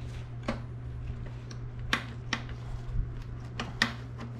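Plastic coolant reservoir tank of a Yamaha VMAX being worked loose and pulled up out of the frame: a handful of sharp plastic clicks and knocks, the sharpest about two seconds in and near the end, over a steady low hum.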